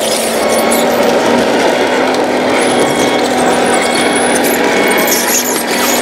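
Steady motor whir of a radio-controlled model Komatsu D65PX bulldozer on the move, with a constant hum under it.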